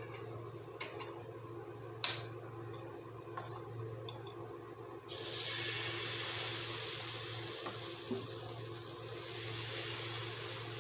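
Wheat-flour dosa batter sizzling on a hot dosa griddle: a steady hiss starts suddenly about five seconds in as the batter hits the pan, and carries on while it is spread with the ladle. Before that, a few light clicks and one sharp knock about two seconds in.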